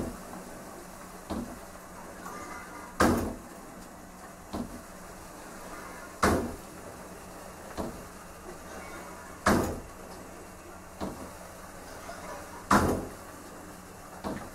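Swing check valves on a NIFTE thermofluidic pump slamming with sharp clacks as they snap open and shut. A loud clack comes about every three seconds, with a softer one between each pair. The noise comes from the very sudden action of this valve type.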